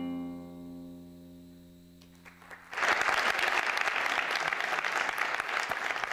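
Instrumental music ends on a held chord that rings out and fades away. A little under three seconds in, the audience breaks into applause that keeps going.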